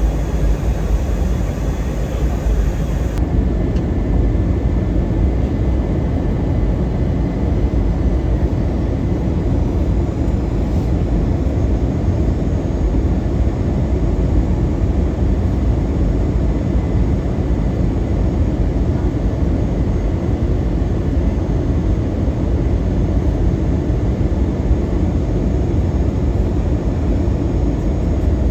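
Steady low rumble of an airliner cabin in flight: engine and air noise, unchanging throughout.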